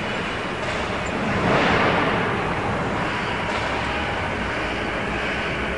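Steady mechanical roar of background machinery, an even noise that swells briefly about one and a half seconds in.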